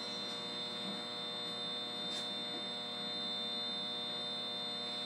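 Steady electrical hum from switchgear, several fixed tones with a thin high-pitched whine on top, and a faint tick about two seconds in.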